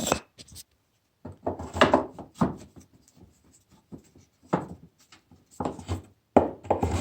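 A wooden block scraping and knocking against the wooden frame of a homemade router lathe as it is worked into place by hand. The sound comes in short spells of rubbing with small knocks: about a second and a half in, near the middle, and again near the end.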